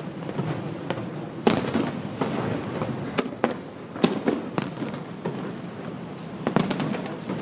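Fireworks display: shells bursting in a string of sharp bangs at irregular intervals, some coming in quick pairs, over a steady background of noise.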